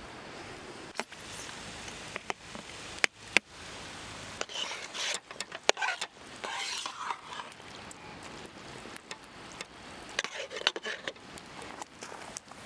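Food frying in a pan over a campfire, a steady faint sizzle broken by scattered sharp clicks and knocks.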